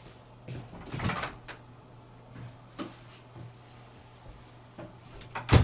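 Wooden room door opening: latch clicks and a rustling swing about a second in, a few light knocks, then the door shut with a sharp knock near the end, the loudest sound.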